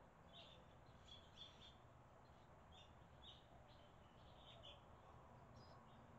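Barn swallows chirping faintly: a string of short, high chirps at an irregular pace.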